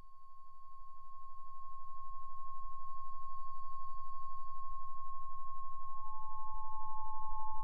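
A steady, high pure tone swelling in over the first few seconds above a low hum with a fast, even pulse; a second, slightly lower tone joins about six seconds in.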